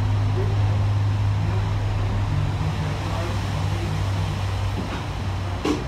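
W class electric tram standing still, its equipment giving a steady low hum that cuts off with a click near the end.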